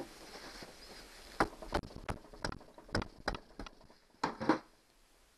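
Metal tools clicking and knocking against a Honda 9.9 hp outboard's powerhead as a screwdriver wedged in its seam is worked to split it from the block. About nine sharp, irregularly spaced knocks fall between about a second and a half and four and a half seconds in.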